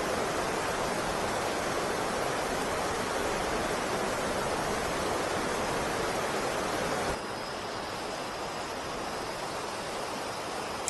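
Water rushing steadily over and below a river weir. About seven seconds in it suddenly becomes a little quieter.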